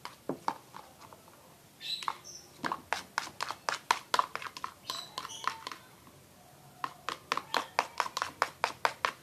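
Quick footsteps tapping on a hard floor, about four or five steps a second, in two spells with a short pause between.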